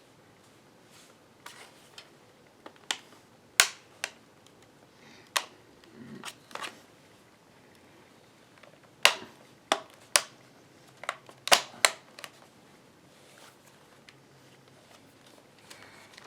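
Irregular sharp clicks and taps of an Acer laptop's plastic case parts being handled and pressed as the bottom cover is worked back into place.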